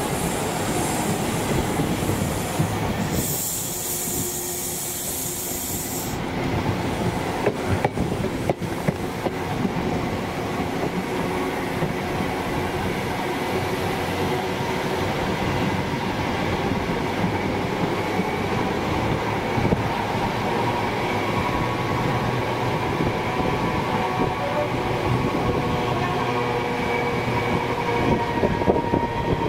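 HST passenger train running along the line, heard from on board as a steady rolling rumble. A brief high hiss comes about three seconds in, a few sharp clicks come around eight seconds in, and faint steady whining tones run through the second half.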